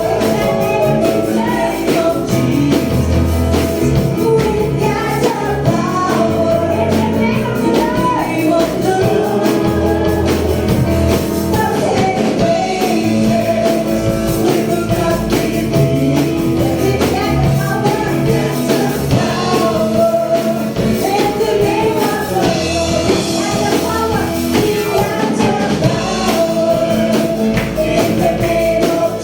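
Gospel song: singing over a band with drums and a steady beat.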